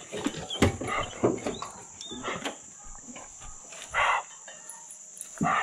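Hog-hunting dogs barking and yelping in short bursts, the loudest about four seconds in and again near the end, over a steady high whine.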